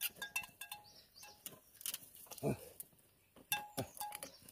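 Light metallic clinks with short ringing notes, repeated irregularly, from a yoked pair of oxen drawing a wooden plough through stony soil. A short voice-like call comes about halfway through.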